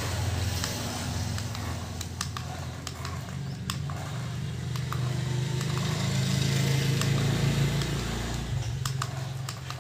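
Toy radio-controlled car's small electric motor and plastic gearing running as it drives on a concrete floor: a steady low hum that swells about five seconds in and eases near the end, with scattered light clicks.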